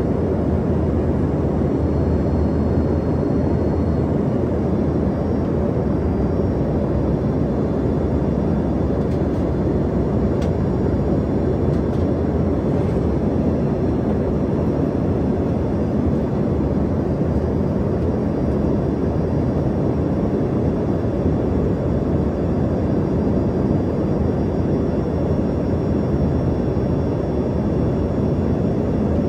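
Steady cabin drone of an Embraer ERJ-145 regional jet: the rumble of its two rear-mounted Rolls-Royce AE 3007 turbofans and the airflow, with a faint high whine above it.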